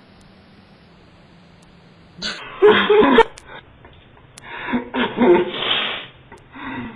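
A person sneezing loudly twice, the first about two seconds in and the second a little later, each with a noisy, voiced blast.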